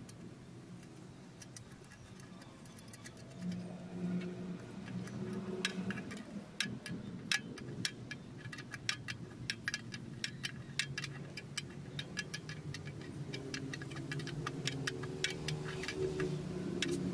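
Rapid, irregular small metallic clicks of a hand tool working the terminal screws and wire lugs on a generator's terminal block, starting a few seconds in, over a faint low hum.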